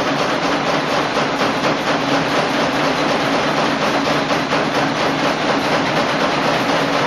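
Several automatic wire nail making machines running at once, a loud, steady, dense metallic clatter of rapid stamping strokes.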